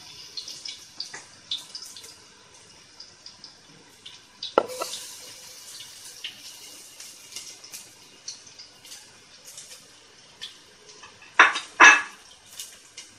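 Chopped garlic sizzling in hot olive oil in a frying pan, a faint hiss dotted with many small crackling pops. A sharp knock comes about four and a half seconds in, and two louder knocks come near the end.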